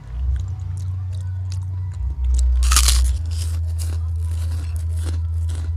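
Close-up crunching and chewing of crunchy food during a mukbang, with a loud crunch about three seconds in, over the steady bass of background music.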